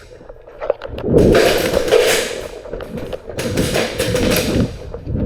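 Airsoft guns firing two long bursts, the first about a second in and lasting nearly two seconds, the second a shorter one a little later, with scattered single clicks around them.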